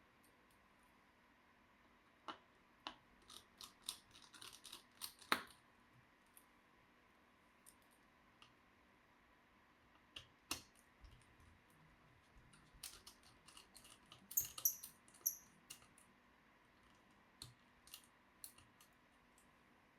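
Light, sharp clicks and taps of small tools and plastic laptop parts being handled as a laptop is taken apart. They come in two busy runs, a few seconds in and again around the middle, with a few single clicks near the end.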